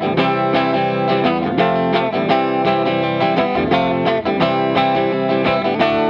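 Background music: a melody of plucked notes picked out at about four notes a second.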